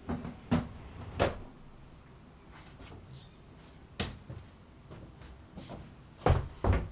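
Knocks and clunks in a small room, like a cupboard or door being handled: three sharp knocks in the first second and a half, another about four seconds in, and two heavier, louder thumps near the end.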